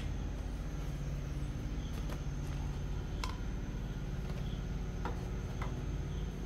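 Steady low hum of a gas burner on a low flame under a small steel pot of simmering tea, with a few faint ticks.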